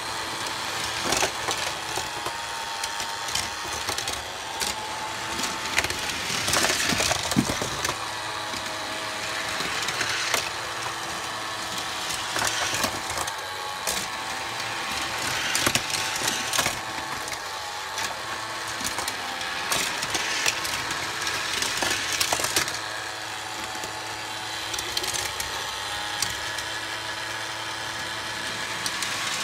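Battery-powered motor of a Tomica toy highway playset running with a steady whirring hum, while small toy cars click and rattle along its plastic track.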